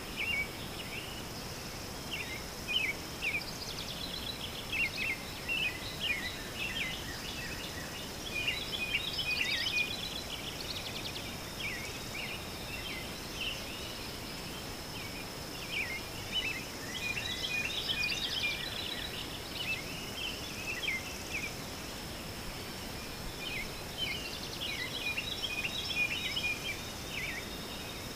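Songbirds chirping, with short rapid calls in scattered clusters, over a steady thin high tone and outdoor background noise.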